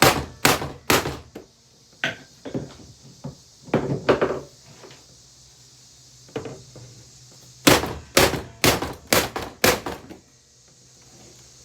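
Repeated heavy blows as a Hoover vacuum cleaner is smashed apart, each a sharp thunk. They come in bursts of several strikes about two a second, ending with a run of about six strikes near the end.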